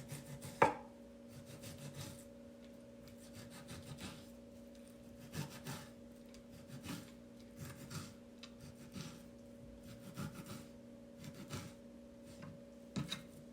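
Knife strokes slicing through a piece of raw beef steak, soft and repeated about once a second, with one sharp knock less than a second in. A steady low hum runs underneath.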